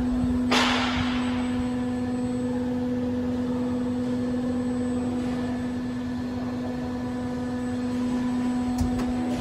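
DM268 pet-treat injection molding machine running with a steady motor hum, with a brief hiss about half a second in.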